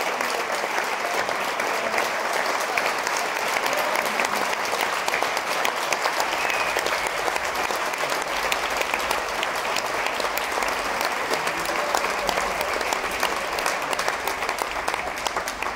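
Sustained applause from the audience and the dancers, a dense, steady patter of many hands clapping.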